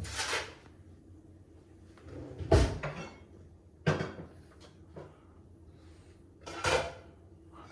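Four short knocks and clunks, spaced irregularly a second or more apart: spoon and bowl handling as gram flour is spooned into a bowl on a kitchen scale.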